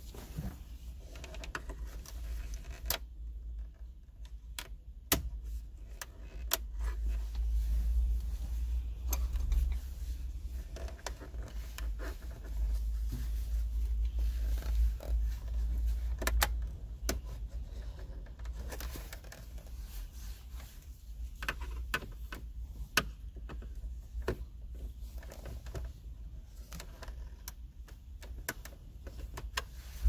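Plastic trim around a BMW F30's gear selector switch panel being pried up with a plastic trim tool: scattered sharp clicks, ticks and scrapes as the tool works under the edge and the clips shift, over a steady low rumble.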